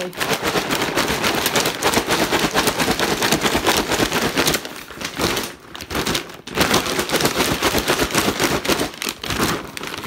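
Brown paper bag of popcorn coated in caramel, folded shut and shaken vigorously: a loud, fast crinkling of paper and rattling of popcorn, with short breaks about five and a half, six and a half and nine seconds in.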